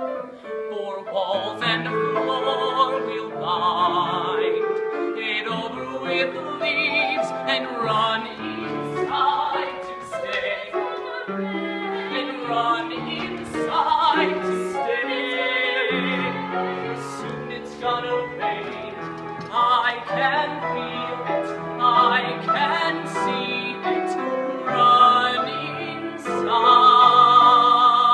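A man and a woman singing a musical-theatre duet live, accompanied by a grand piano. Near the end comes a loud held note with wide vibrato.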